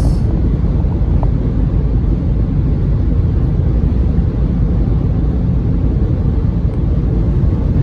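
Steady low rumble of a car driving along the road, heard from inside the car: tyre and wind noise.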